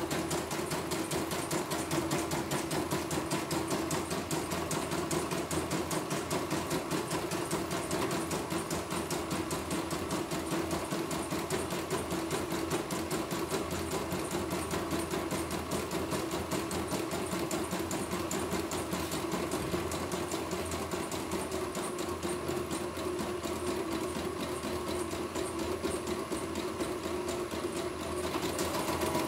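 CNY computerized embroidery machine stitching steadily, its needle going up and down in a fast, even rhythm. The even, stable running is the sign that it works properly again after a needle-bar bracket replacement.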